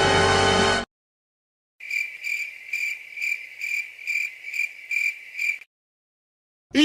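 Crickets-chirping sound effect: about ten evenly spaced high chirps, roughly two and a half a second, lasting about four seconds. It is the stock gag for an awkward silence. Music ends abruptly just under a second in, and a short swooping sound starts right at the end.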